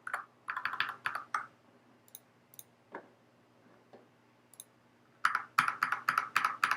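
Clicking of a computer mouse and keyboard while working an editor: a quick run of clicks in the first second and a half, a few scattered single clicks, then another fast run near the end.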